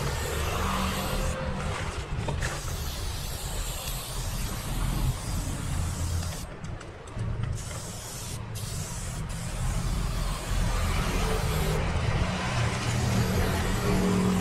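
Aerosol spray-paint can hissing in long bursts as paint is sprayed onto a wall, the hiss breaking off briefly a few times, longest for about a second midway. A steady low rumble runs underneath.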